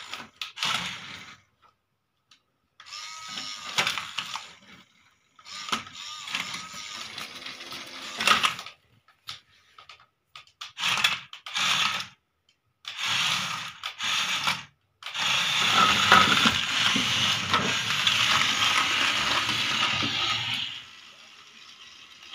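Small electric motor and plastic gears of a remote-control toy excavator whirring in stop-start bursts, with the longest steady run, about six seconds, in the second half.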